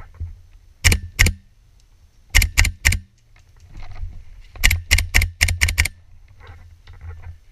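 Airsoft rifle firing single shots in three strings: two shots, then three, then about seven in quick succession. The shots sound muffled through a closed waterproof camera housing.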